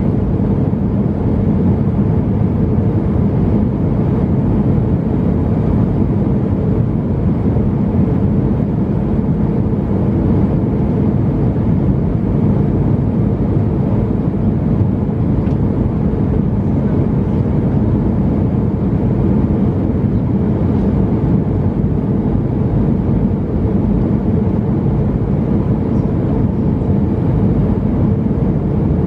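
Airbus A220-300 cabin noise in flight: a steady low drone of engines and airflow that does not change.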